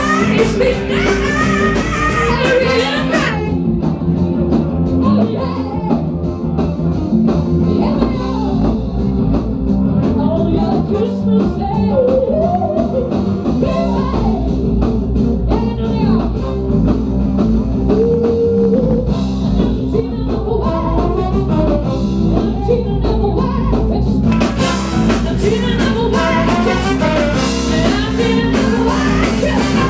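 Live funk band playing with a female lead singer over electric guitar, bass, drums and a horn section. The bright high end of the drums drops out about three seconds in, leaving a sparser groove under the singing, and the full band comes back in about six seconds before the end.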